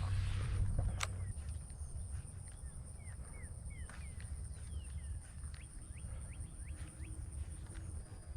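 Birds chirping outdoors: a run of short, quick chirps in the middle, over a steady high-pitched insect drone and a low wind rumble, with a single sharp click about a second in.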